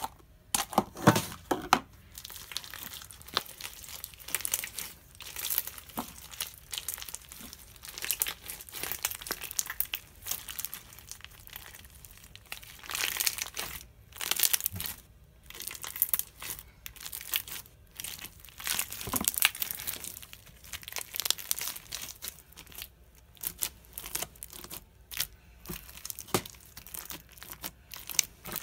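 Hands squeezing and kneading a sticky homemade slime packed with cut plastic straw pieces and plastic beads, giving irregular crackly, sticky squishes, with a louder knock about a second in.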